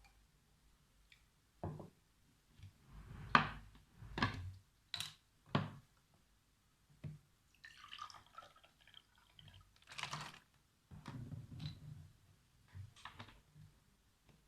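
Scattered knocks and clicks of small objects handled on a desk, about a dozen, irregularly spaced, with a short rustle about eight seconds in.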